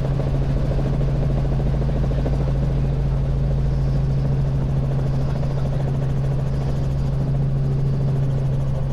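Robinson R44 Raven I helicopter in flight, heard from inside the cabin: the steady drone of its piston engine and rotors, with a strong, even low hum.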